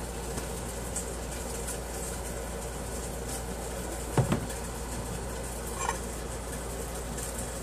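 Steady room noise with a low hum, broken by a dull double knock about four seconds in and a light clink of a fork against a china plate near six seconds.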